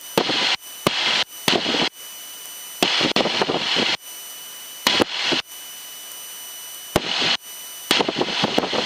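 Aircraft headset intercom or radio audio cutting in and out: bursts of crackling hiss that switch on and off abruptly, each under a second long and about a dozen of them, with a faint steady electrical whine underneath.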